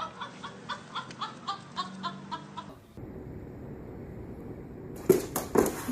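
A rapid series of short, pitched animal calls, about four or five a second, that cuts off abruptly about three seconds in. A steady background follows, then a burst of sharp knocks and clatter near the end.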